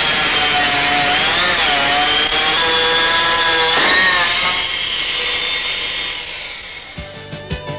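Hydraulic stone-cutting machine's saw cutting a stone slab: a loud, steady grinding whine whose pitch dips and wavers under load. It fades out from about five seconds in, and music begins near the end.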